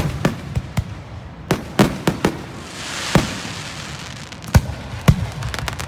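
Fireworks going off: a string of sharp bangs at irregular intervals, several close together in the first two seconds and two more near the end, with a crackling hiss about three seconds in.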